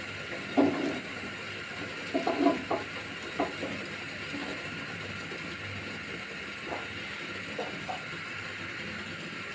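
Wooden spatula scraping and knocking against a frying pan as a thin pancake is worked loose and lifted out: a short scrape about half a second in, a cluster of scrapes and knocks around two to three and a half seconds, and a few fainter taps later, over a steady background hiss.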